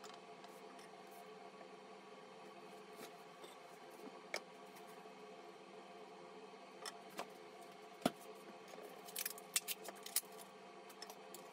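Light clicks and taps of cooking chopsticks and dishes being handled beside a gas stove, with one sharp knock about eight seconds in and a quick run of clicks near the end, over a steady low hum.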